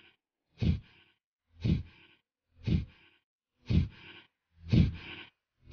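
Kapalbhati pranayama breathing: a series of short, forceful exhalation strokes through the nose, about one per second, six in all.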